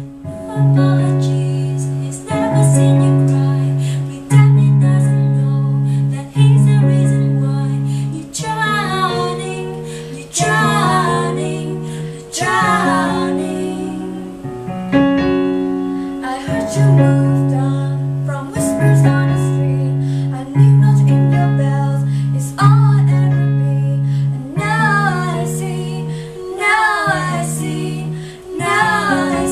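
Two women singing a pop song in harmony over a Roland RD-150 digital piano played four-handed. Sustained piano chords change about every two seconds, and the voices are strongest about a third of the way in and again near the end.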